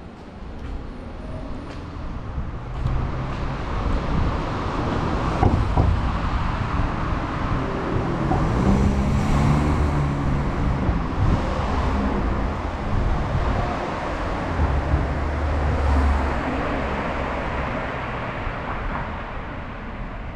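Street traffic: engines and tyres of motor vehicles passing close by. It builds a couple of seconds in, is loudest in the middle and eases off near the end.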